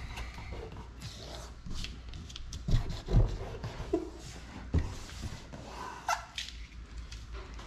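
Hands pressing and rubbing masking tape down onto an RV entry door, giving scattered soft knocks and brushing noises over a steady low hum.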